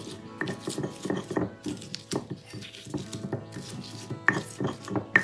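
Stone pestle knocking and grinding on a stone mortar (cobek and ulekan) as it crushes chilies and shallots: irregular knocks several times a second, the two sharpest near the end. Background music plays underneath.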